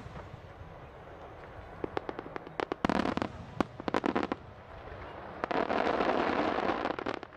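Aerial firework shells going off: clusters of sharp cracks and bangs from about two seconds in, then a longer stretch of dense crackling near the end.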